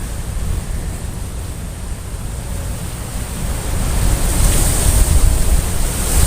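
Wind buffeting the microphone: a gusty rushing noise with a heavy low rumble, growing louder about four seconds in.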